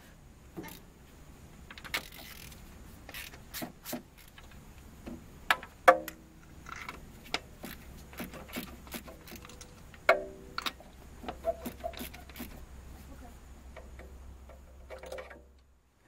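Ratchet wrench clicking and a socket and extension clinking on metal as spark plugs are loosened and pulled from a 2.4 four-cylinder engine head. There are irregular clicks throughout and a few sharp clinks that ring briefly, the loudest about six and ten seconds in, over a low steady hum.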